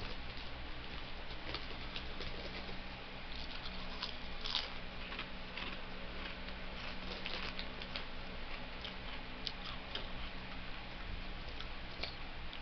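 Scattered soft crackles and clicks of snack chips and their bag being handled and crunched, over a steady low hum.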